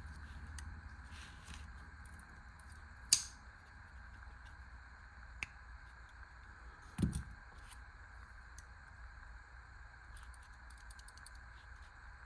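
Small metal clicks from a folding pocket knife being handled and worked on, with one sharp click about three seconds in, a dull thump about seven seconds in, and a run of faint quick clicks near the end.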